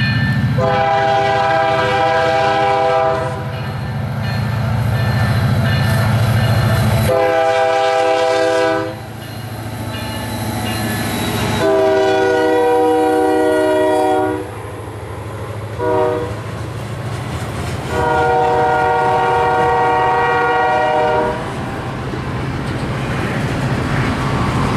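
Diesel freight locomotive's multi-chime air horn sounding five blasts: long, long, long, a short one, then a final long one. The closing long-long-short-long is the standard grade-crossing warning. Under the horn, the locomotive's diesel engine rumbles as it passes close, followed by the rolling clatter of freight cars going by.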